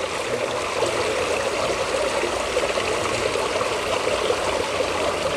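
Steady trickling and splashing of water running down a stacked-stone waterfall feature into a swimming pool.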